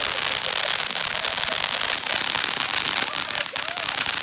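Fireworks crackling densely: a continuous fizz of tiny rapid pops with no single large bang.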